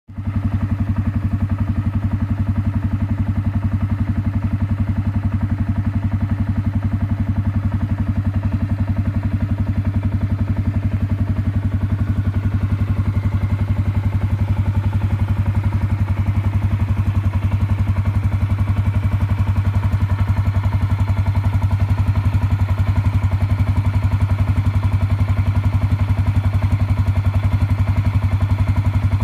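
Can-Am Outlander 400 ATV's single-cylinder Rotax engine idling steadily with a fast, even beat.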